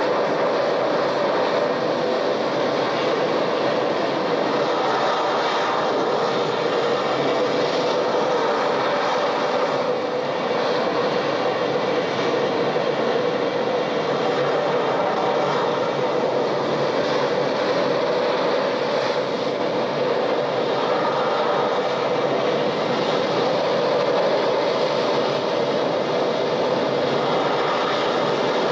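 A recorded vehicle sound effect played from a stereo sound-effects cassette on a 1976 Sony TC-520CS: a steady, continuous rumbling noise that holds at one level throughout, with tape hiss.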